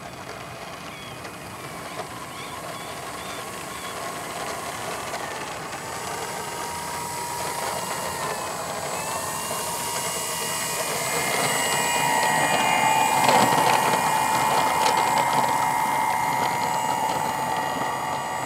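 Electric RC plane's brushless motor (NTM Propdrive 50/50 570KV) and APC 11x5.5 propeller whining at taxi throttle, growing louder as the plane rolls closer. The pitch dips and rises a few times as the throttle is worked. The wheels rattle over the gravel strip, loudest about two-thirds through.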